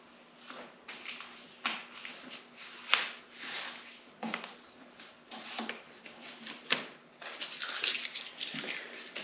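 Paper template rustling and crinkling as it is handled and smoothed by hand: a series of short, sharp crackles and scrapes, denser and more continuous near the end.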